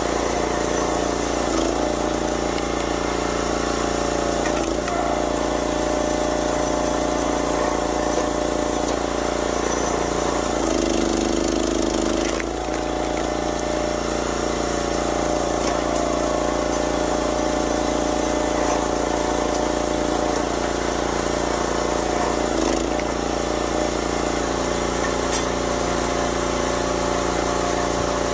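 YardMax 25-ton log splitter's small gas engine running steadily while the splitter is worked. Its note changes for about two seconds a little before the middle.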